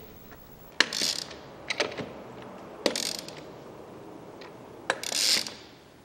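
Half-inch drive hand ratchet clicking as it runs lug nuts down onto the wheel studs: three short runs of clicks about two seconds apart, with single metallic clicks between.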